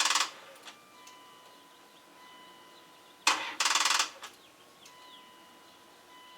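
Dodge Durango's starter failing to crank on a weak battery: turning the key gives a short burst and a rapid clicking chatter from the starter, twice, once right at the start and again about three and a half seconds in. The battery is too weak to turn the engine over.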